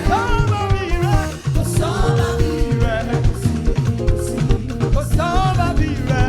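Upbeat gospel praise music with a steady, danceable drum and bass beat, a voice singing a bending melody over it.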